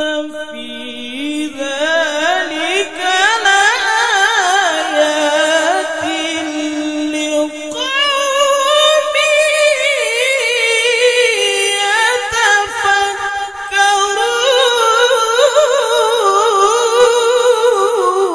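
Male qari reciting the Qur'an in the melodic tilawah style through a microphone: a long, high, wavering melismatic line with dense vocal ornaments, broken by a short breath about eight seconds in.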